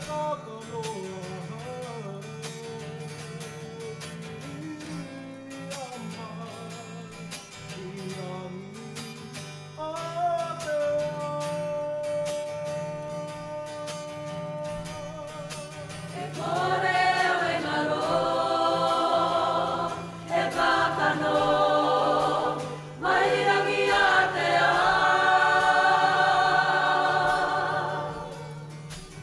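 A Māori waiata: acoustic guitar strumming under a single male voice holding long notes, then, a little past halfway, the whole kapa haka group comes in much louder, men and women singing together with the guitar.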